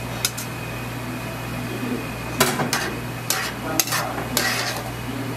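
Utensils and a steel bowl clinking against a wok of boiling broth as kalguksu noodles are tipped in and stirred: one click early, then a run of clinks and a short scrape in the second half, over a steady low hum.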